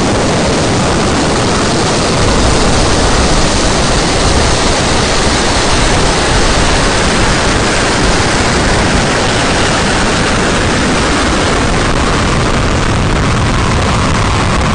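Zhuque-2 rocket's first stage, four TQ-12 methane–liquid-oxygen engines, firing at ignition and liftoff: a loud, steady, unbroken roar with a deep rumble underneath. It swells slightly a couple of seconds in as the rocket climbs off the pad.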